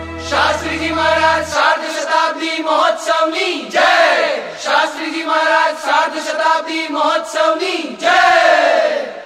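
A group of voices chanting a devotional chant in unison at a steady rhythm. A low held musical tone underneath stops about a second and a half in, and the chant fades out at the end.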